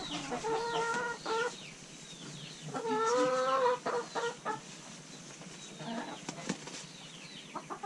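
Hens clucking and calling, with two drawn-out calls, one at the start and a longer one about three seconds in, over many short falling chirps.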